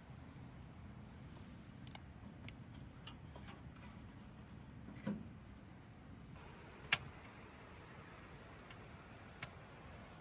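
Scattered faint knocks and clicks from a small wood stove being loaded with small pieces of wood and lit, over a low background hush. A dull knock comes about halfway through and a sharp click a couple of seconds later.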